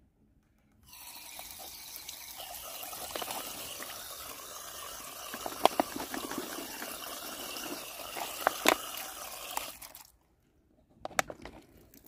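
Water running from a garden water tank's brass tap and splashing over grapes in a plastic punnet, with a few sharp clicks. The water starts about a second in and stops near ten seconds.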